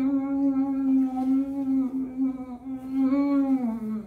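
A woman's long, drawn-out 'mmm' hum of pleasure at the taste of food, held on one pitch and sinking slightly near the end.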